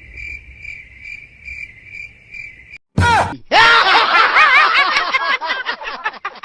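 Cricket chirping sound effect, a steady high chirp pulsing about three times a second. About three seconds in it is cut by a sudden loud hit, then a loud, rapidly wavering high-pitched sound.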